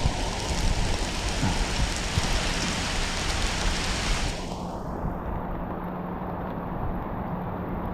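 Heavy rain pouring down as a dense, steady hiss. About four seconds in the brighter, higher part of the hiss drops away, and a faint steady low hum runs underneath after that.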